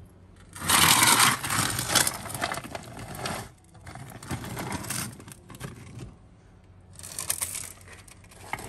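A metal shovel scraping into a heap of lump coal, the lumps clattering and rattling on the blade. One long scoop starts about half a second in and lasts about three seconds, and another starts near the end.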